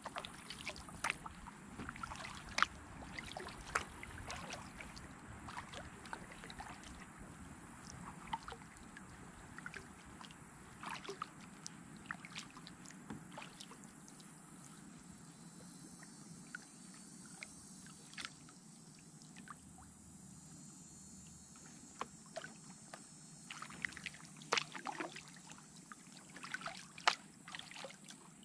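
Kayak being paddled on calm water: the paddle dips and drips, with small irregular splashes and knocks. The strokes thin out for a while in the middle and pick up again near the end, over a faint steady high whine.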